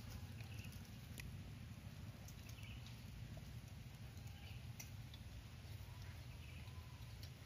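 Faint, scattered clicks and taps of a spoon against clay bowls during a meal, over a low steady outdoor rumble.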